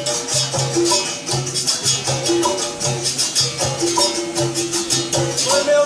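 Capoeira music led by a berimbau, with a rattling shaker played in a quick, steady rhythm over a repeating low beat and short pitched notes.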